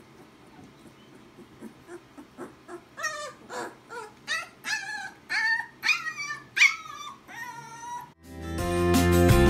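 A puppy giving a run of about nine short, high yips and whimpers, each falling in pitch, after a few seconds of faint scuffling on towels. Acoustic guitar music fades in near the end.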